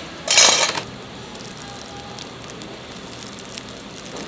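A brief, loud crackling rustle lasting about half a second, about a third of a second in, over steady background noise with scattered small ticks.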